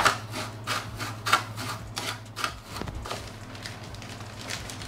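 Wooden spoon stirring breadcrumbs and dry spices in a glass dish: a dry, gritty scraping of about three strokes a second that stops about halfway through.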